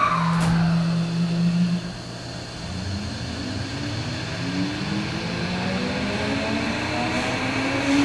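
Tokyo Metro 07 series train starting off from a station, heard inside the car: a steady low hum for the first two seconds, then the whine of the Mitsubishi PMSM VVVF inverter and traction motors, several tones rising together in pitch as the train accelerates.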